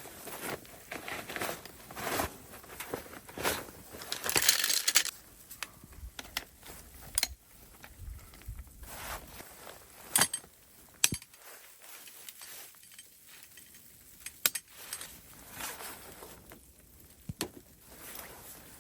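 Crunching in snow, with scattered sharp snaps and knocks from dead branches being handled for firewood.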